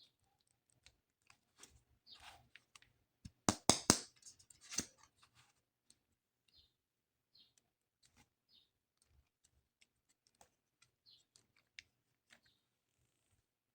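Plastic toy parts and packaging being handled: scattered small clicks and brief crinkles, with a quick run of louder plastic clacks about three and a half seconds in.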